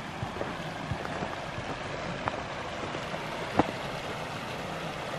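Creek water running steadily over a concrete low-water ford partly dammed with rocks and sticks, with one light click about three and a half seconds in.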